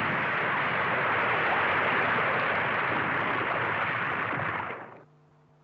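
Cartoon avalanche sound effect: a steady rush of noise from the snow slide that dies away about five seconds in, leaving only a faint low hum.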